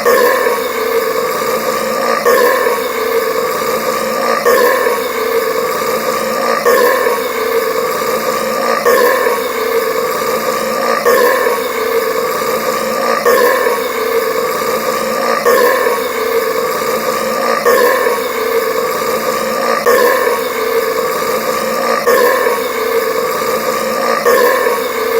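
A deep soda burp, looped so that it repeats without a break about every two seconds, a burp brought on by carbonated soda.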